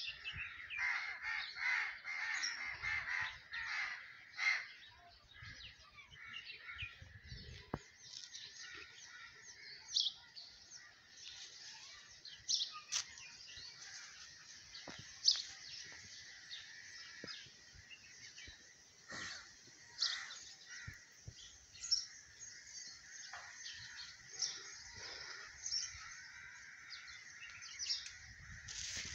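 Birds chirping and calling: many short calls scattered throughout, over a faint steady high-pitched drone.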